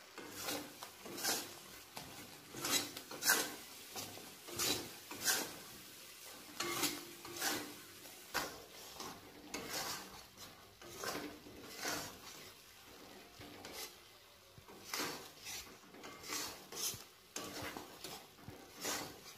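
Metal spatula stirring and scraping around a metal kadai of thick, sticky mango pickle syrup, in repeated uneven strokes about one or two a second.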